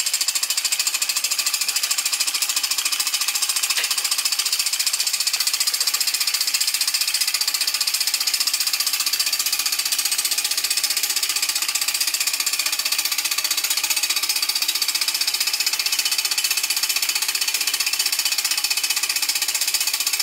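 Homemade single-cylinder model steam engine, built from copper plumbing parts, running fast on live steam: a rapid, even clatter with steam hiss.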